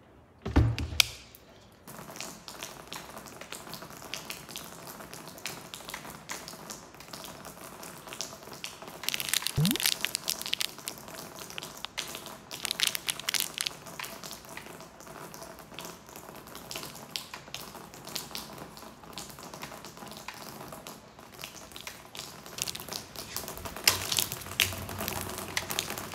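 Rain falling steadily with a crackling patter, starting about two seconds in after a couple of thumps. A brief rising squeak about ten seconds in.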